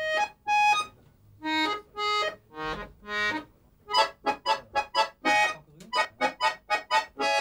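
Short instrumental intro jingle: a reedy melody of six held notes, then a quick run of short notes, about four a second.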